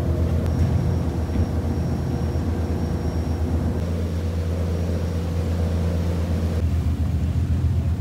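Tour boat's engine running steadily under way, a low droning hum, with the rush of water and wind around the moving hull.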